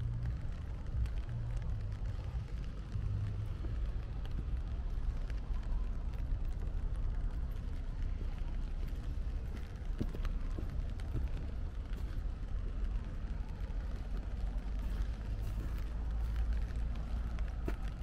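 Footsteps walking on a wet street, under a steady low rumble on a small camera microphone.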